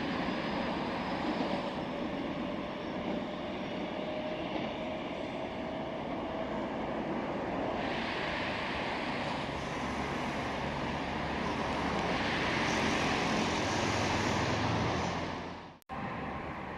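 Electric subway train running, a steady rumble and hiss with a faint whine slowly rising in pitch; the hiss swells twice. The sound cuts off abruptly near the end.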